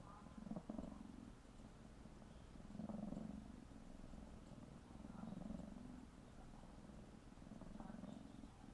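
Tabby cat purring steadily and softly, the purr swelling with each breath roughly every two and a half seconds.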